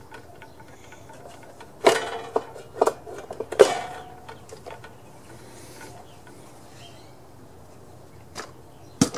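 Knocks and clatter of a small engine's blower housing being worked loose and lifted off a riding mower's engine: a few sharp knocks about two seconds in, the loudest just before four seconds with a short ring, then two more knocks near the end.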